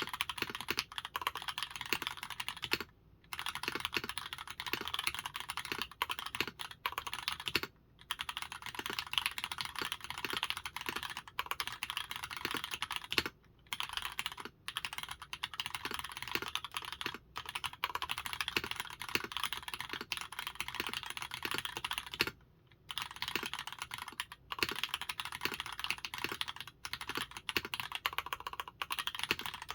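Fast, continuous typing on an OTD 356 Mini custom 60% keyboard with Cherry MX Black linear switches on 70 g springs, a full aluminium plate and GMK keycaps. The keystrokes come in a dense run that stops for short pauses a few times.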